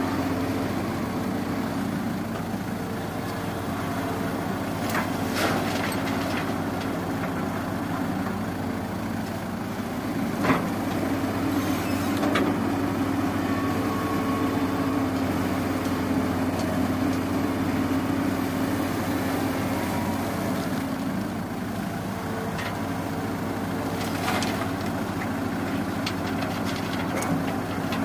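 Excavator's diesel engine running steadily, with a few sharp knocks scattered through.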